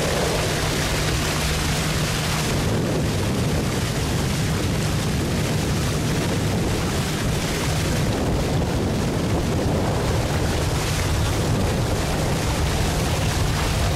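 Outboard motor driving a wooden dugout canoe across a lake, running at a steady pitch, with wind rumbling on the microphone and water rushing past the hull.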